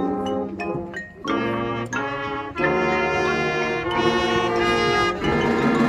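Marching band brass section playing short, detached notes, then swelling into long held chords about a second and a half in.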